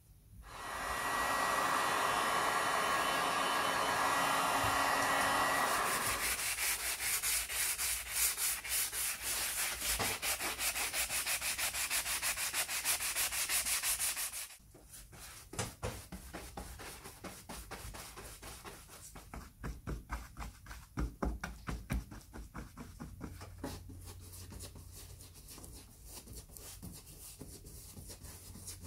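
Hand-sanding of dried filler with a sanding sponge: a loud, continuous scratchy rasp of fast strokes that stops abruptly about 14 seconds in. After that come quieter, separate rhythmic strokes, a paintbrush laying on white paint.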